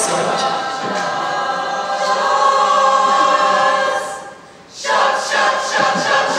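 A large group of students singing together in a house choir, holding long notes. The singing breaks off briefly about four and a half seconds in, then comes back in short, rhythmic phrases.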